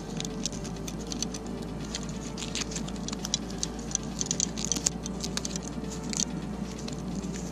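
Handling noise of hands fitting a Velcro strap onto a fishing rod's cork handle: irregular soft clicks and rustles.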